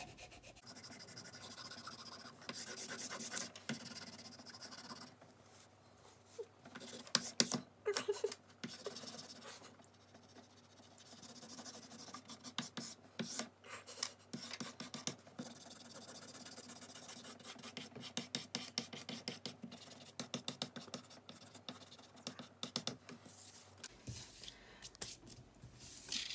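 Dry scratching and rubbing of yellow colouring being shaded back and forth over paper, in quick runs of strokes with short pauses.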